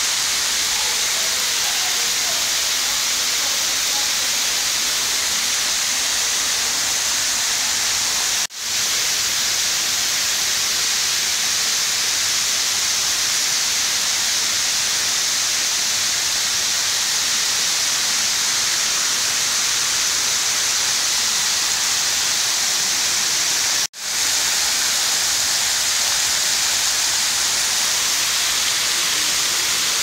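Indoor rain-curtain waterfall fountain: water pouring from a ceiling oculus in many thin streams and splashing into a shallow pool, a steady even hiss. The sound cuts out briefly twice, about a third of the way in and again past three quarters.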